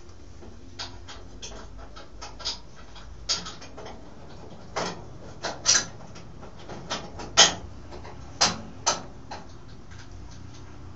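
Irregular clicks and knocks from metal parts being handled and fitted, the loudest about seven seconds in, over a low steady hum.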